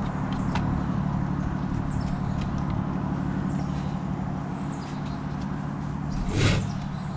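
An engine running steadily at idle, with light clicks and taps over it and a louder handling bump about six seconds in.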